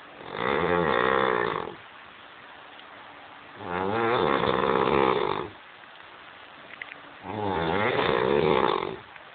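A drunk man snoring: three long snores, each just under two seconds, coming about every three and a half seconds.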